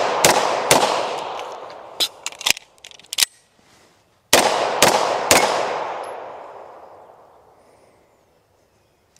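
Beretta M9A4 9mm pistol firing fast strings. Two shots right at the start finish the first three-shot string. Lighter clicks about two to three seconds in are the empty-gun reload. Then three more quick shots come about four and a half to five and a half seconds in, and the echo fades over the next few seconds.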